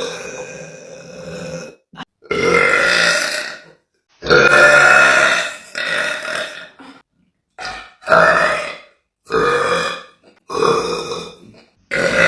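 A woman's deep burps, one after another, about eight in a row. Each lasts about a second and ends in an abrupt silent gap.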